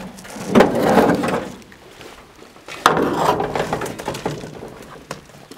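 A sheet-metal pickup truck hood scraping and flexing as it is lifted and set onto wooden sawhorses. There are two loud bouts, one about half a second in and one just under three seconds in, each starting with a knock.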